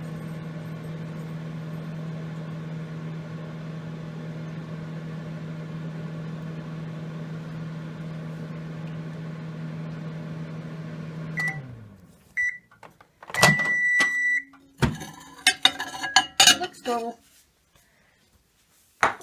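Microwave oven running with a steady hum until about eleven seconds in, when it shuts off and the hum winds down. Short beeps follow, then a longer end-of-cycle beep, then clicks and clattering.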